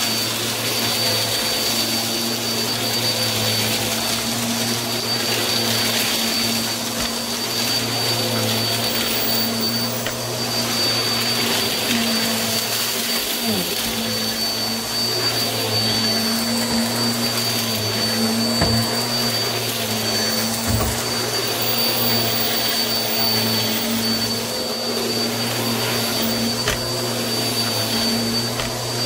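Bissell Helix Turbo upright vacuum cleaner running steadily over carpet: a constant high whine over the motor hum, with a few sharp ticks as gritty debris is sucked up.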